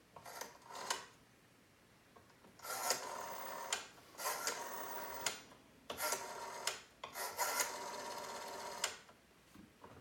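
Rotary telephone dial being turned and whirring back as digits are dialed: four buzzy mechanical whirrs of about one to two seconds each, after a couple of short lighter clicks near the start.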